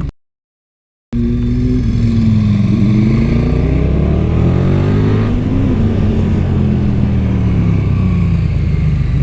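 KTM 1290 Super Duke R's V-twin engine on its stock exhaust, revving up and easing off through bends, its pitch rising and falling several times. The sound cuts out completely for about a second just after the start.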